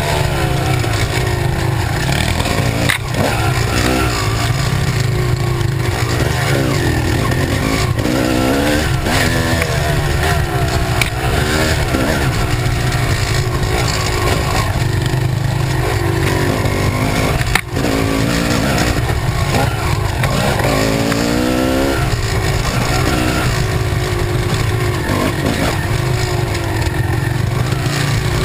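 Kawasaki KX250 dirt bike engine running hard on a trail ride, its pitch rising and falling again and again as the throttle is opened and chopped, under a heavy low rumble.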